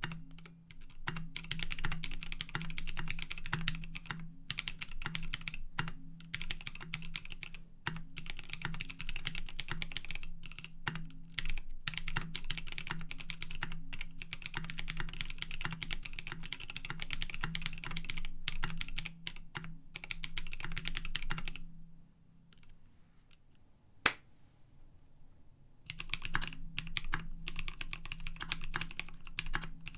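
Continuous typing on a KBD D60 keyboard with unlubed NovelKeys Cream linear switches, polycarbonate plate and PBT keycaps. The typing stops for a few seconds, broken by a single sharp click, then resumes on the same keyboard with the Cream switches lubed.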